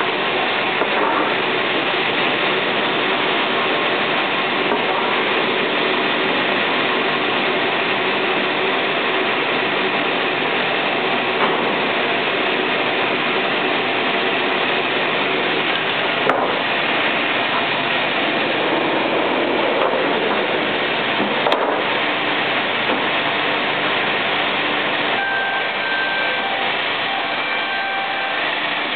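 Old sawmill machinery running with a steady, dense din, the frame saw and its drive going without pause. Two short sharp knocks stand out in the second half.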